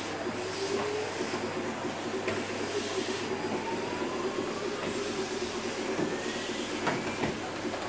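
Canister vacuum cleaner running steadily while its nozzle is worked over a rug, with a few light knocks as the machine is dragged across.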